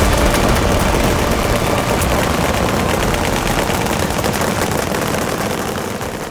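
Rapid gunfire, shots following one another too closely to count, slowly getting quieter toward the end.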